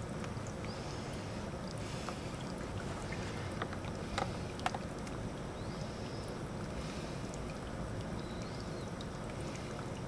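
Tabletop mist fountain running: the steady low hum and water noise of its small pump and mister, with a few small sharp ticks about four to five seconds in.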